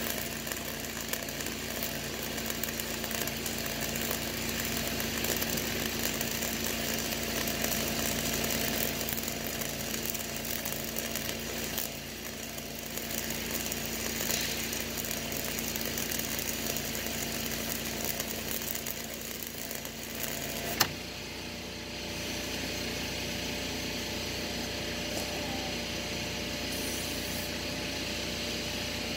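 Arc welding on a steel column: the arc crackles and sizzles steadily, then stops with a sharp click about 21 seconds in, leaving a steady hum.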